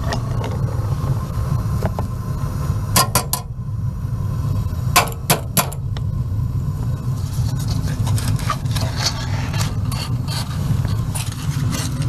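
Gas water heater's main burner firing with a steady low rumble. Two sets of three sharp clicks fall about three and five seconds in.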